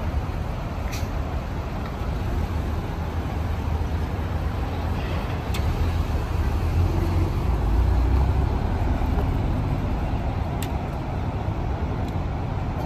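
Low, steady engine and exhaust rumble of a lowered widebody Mitsubishi Lancer rolling slowly past, with a few faint clicks.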